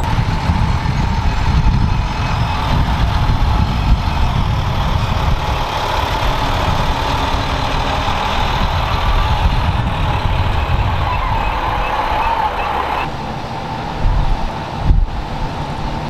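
Military FMTV cargo truck's diesel engine running as it drives slowly past, a steady rumble with a faint whine. About three-quarters of the way through the sound drops and changes, with a couple of thumps near the end.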